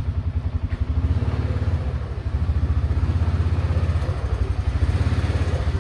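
Polaris off-road utility vehicle's engine running at low speed as it creeps forward, a steady rapid low putter.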